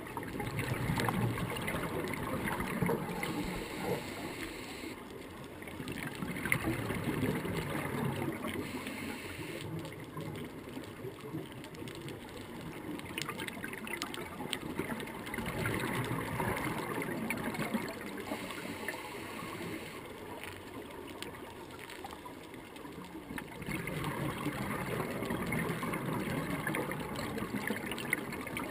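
Scuba diver's regulator breathing underwater: exhaled bubbles bubbling up in louder surges every several seconds, over a steady underwater hiss.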